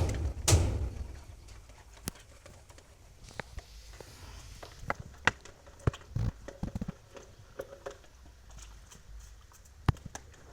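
A few heavy thuds about half a second apart in the first second, then scattered light knocks and clicks.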